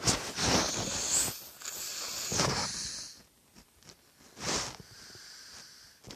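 Breathy hissing close to the microphone: two long stretches in the first three seconds and a short one about four and a half seconds in.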